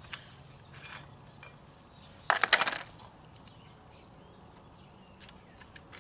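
Steel keeper plate and lock nuts inside a semi truck's rear wheel hub being handled by hand. A few light clinks, with a quick metallic rattle about halfway through.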